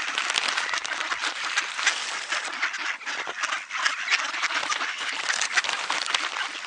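A flock of ducks quacking and calling at once, a dense, continuous chatter of many overlapping short calls.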